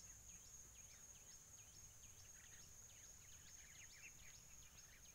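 Faint natural ambience: a steady high-pitched drone with many short falling chirps repeating several times a second.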